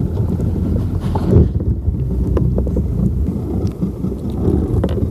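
Wind buffeting the microphone in an uneven low rumble, with scattered light clicks and knocks.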